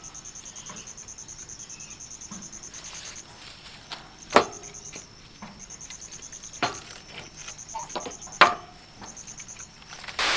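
Insects, most likely crickets, trilling in rapid even pulses with a few short breaks, over which come several sharp knocks, the loudest about four and eight and a half seconds in.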